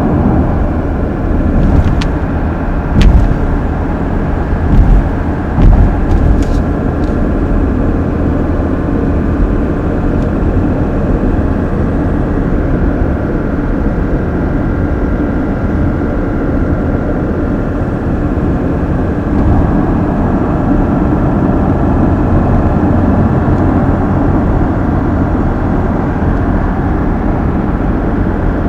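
Mazda CX-60's 3.3-litre straight-six diesel car on the move: a steady mix of engine and road noise. Several sharp knocks sound in the first seven seconds.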